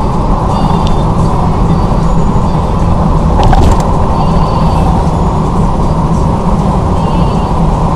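Steady low road and engine drone inside a car driving on a highway, picked up by a dashcam, with a brief clicking about three and a half seconds in.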